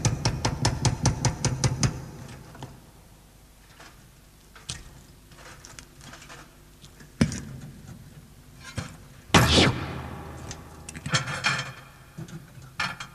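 A fast, even run of sharp strikes, about six a second, that fades out about two seconds in. Then come scattered single knocks and a few louder crashes in the second half.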